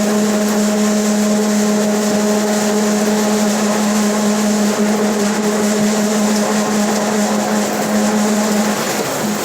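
Rear differential of a Mercedes-Benz OF 1721 BlueTec 5 city bus growling under way: one steady whining tone held over the bus's running and road noise, wavering briefly near the end.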